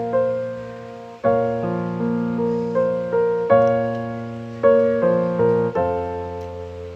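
Background piano music: slow single notes and chords, each struck and then fading, with a last chord near the end left to ring out.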